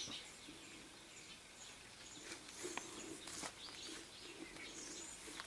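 Faint bird chirps now and then, with a few soft clicks.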